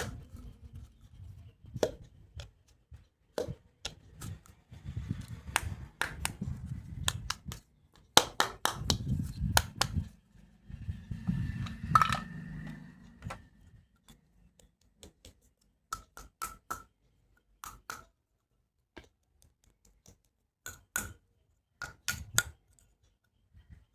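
Hard plastic toy doctor-kit pieces being handled: a scatter of sharp clicks and taps, some with a short ring, over a low rumble of handling that fades out a little past halfway, leaving only sparse clicks.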